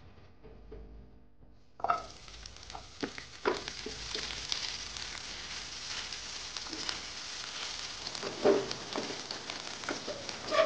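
Sliced shallots and red chilies sizzling in hot oil in a nonstick frying pan, the sizzle starting suddenly about two seconds in as they go into the oil, then being stir-fried with a silicone spatula, with a few sharp knocks of the spatula against the pan.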